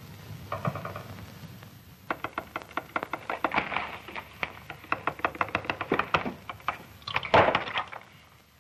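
Telegraph key clicking rapidly and unevenly as Morse code is tapped out, then a loud clatter about seven and a half seconds in.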